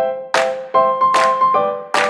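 Background music: a steady beat of sharp hits about every 0.4 seconds under held melodic notes that change pitch partway through.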